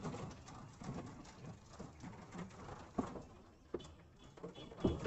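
Dove cooing faintly in the background, with a few short soft knocks about three, three and a half, and five seconds in.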